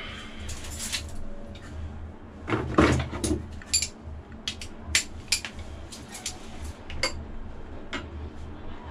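Hand tools clinking and knocking against metal while bolts on the engine's flywheel are worked on: a scattered run of short sharp clicks, with a louder knock about three seconds in.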